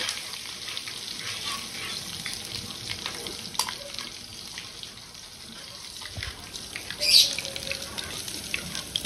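Ginger-garlic paste frying in hot oil in a metal pot, a steady sizzle with small scrapes and taps of a slotted metal spoon stirring it. A brief louder burst comes about seven seconds in.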